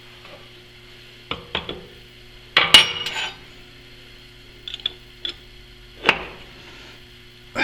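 Steel plate and vise parts clanking and clinking as they are handled: half a dozen separate metal knocks, the loudest a short clatter about three seconds in, over a steady low hum.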